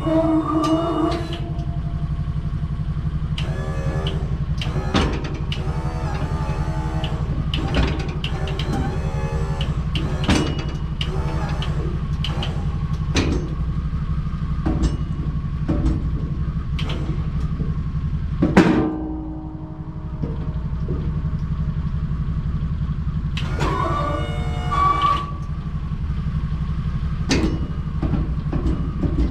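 Can-Am Defender's V-twin engine idling steadily while the SnowEx plow's electric-hydraulic pump whines in short spells as the blade is raised and worked through its function check. Clicks run throughout, with a sharp clunk about two-thirds of the way through.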